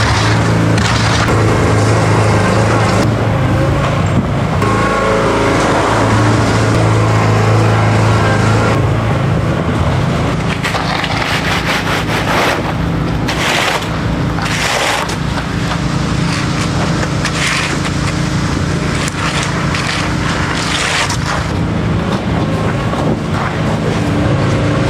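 A machine engine running steadily under irregular scraping and crunching of wet concrete being worked during a pour.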